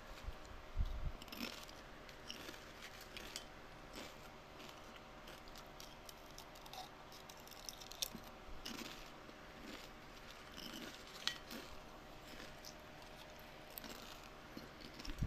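Watermelon being bitten and chewed: irregular small crunches and clicks, with a low thump about a second in.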